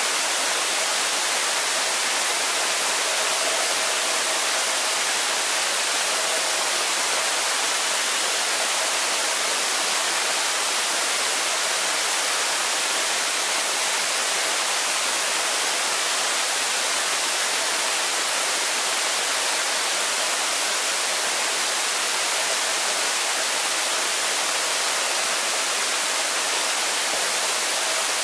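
Steady, even hiss picked up by a camera submerged in a swimming pool: water noise mixed with microphone hiss, with no distinct splashes or strokes standing out.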